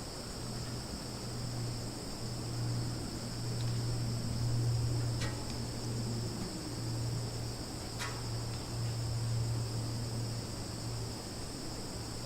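Summer forest ambience: a steady, high-pitched chorus of crickets and other insects over a low, steady hum, with two short clicks about five and eight seconds in.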